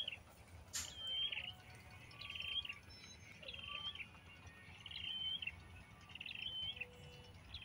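Sparrow chirping at the nest: a short call repeated about once a second, each ending in a quick upward flick. A single sharp click comes about a second in.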